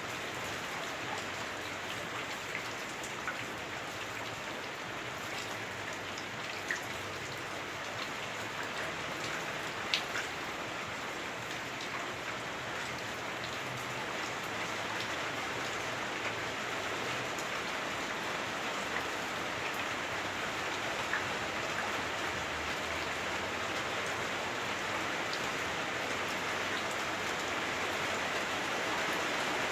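Heavy rain on a house roof heard from inside, a steady dense hiss dotted with sharper drop impacts. It grows slightly heavier over the second half.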